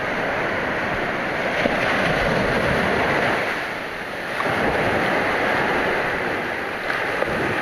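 Small surf waves breaking and washing up a sandy beach. The wash swells louder about two seconds in and again about five seconds in, easing off in between.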